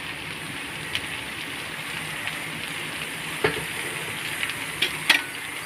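Jackfruit pieces and spice paste frying in a kadai: a steady sizzle with a few sharp clicks, the loudest about five seconds in.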